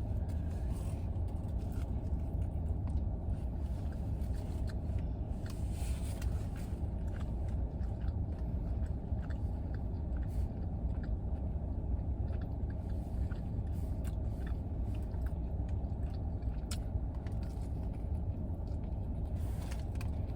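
Chewing and crunchy bites of a sub sandwich, with scattered small clicks and scrapes, over the steady low rumble of a car idling, heard inside the cabin.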